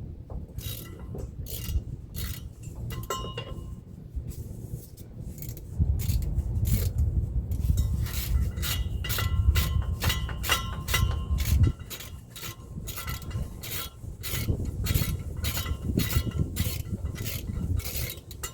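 Hand ratchet clicking in repeated strokes as bolts on the front differential are worked loose, the clicks coming faster and denser in the second half. A low rumble sits under the clicks for several seconds in the middle.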